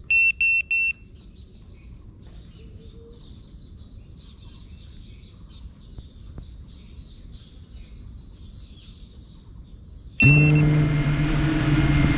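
Four short high electronic beeps, then faint bird chirps over a quiet background. About ten seconds in, the 5-inch FPV quadcopter's motors start suddenly and hold a steady idle hum as the drone sits armed on the ground.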